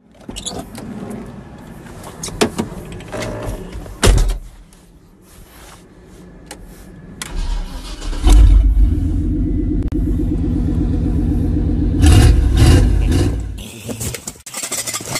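Knocks and rustling from handling, then about halfway through a vehicle engine cranks and catches and runs loudly with an even pulse, rising briefly near the end before cutting off.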